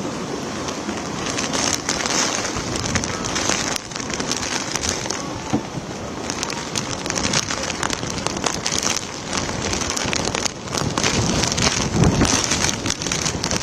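Rainstorm: heavy rain and gusting wind, with storm waves from the lake surging and splashing against the embankment and its railing. The dense rushing noise swells louder near the end.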